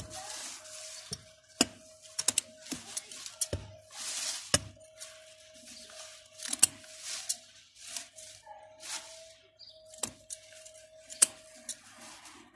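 Scissors snipping mint stems: a run of sharp clicks, several a second at times, between bursts of leaves rustling close to the microphone. A faint steady hum runs underneath.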